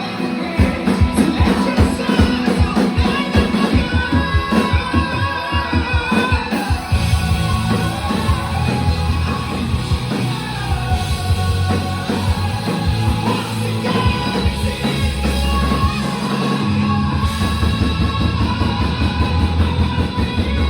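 Live rock band playing loud, recorded from the crowd: drums, guitars and bass with a singing voice, the low end getting heavier about seven seconds in.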